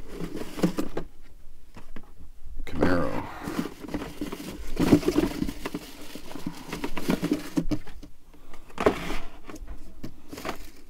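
Hands handling and swapping blister-carded diecast cars: card and clear plastic rustling, scraping and tapping in short irregular bursts.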